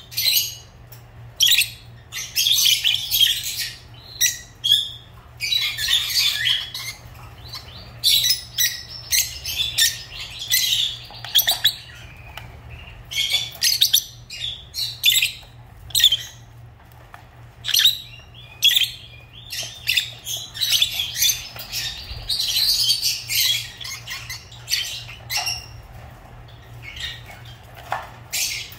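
Lovebirds chirping and squawking in rapid, shrill bursts, the calls coming in runs with short pauses between them.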